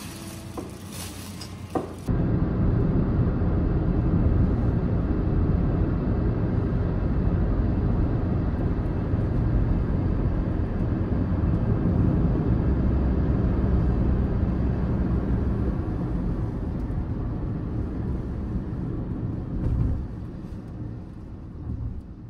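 Steady low road-and-engine rumble heard from inside a moving car, cutting in suddenly about two seconds in after a quieter start and holding steady, easing slightly near the end.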